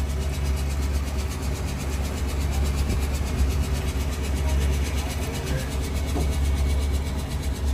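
Heavy diesel engine running steadily under load with a deep, even drone, from a recovery truck pulling a stuck truck with its winch.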